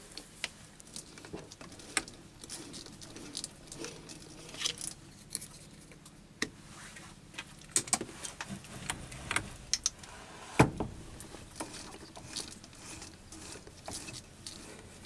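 Scattered light scrapes, clicks and metallic clinks of hand work at a lathe. A hand deburring tool is scraping the edge of a tapped hole in an acetal plastic block, then the four-jaw chuck is handled and turned by hand with a tap in the drill chuck. There is one louder knock about ten and a half seconds in.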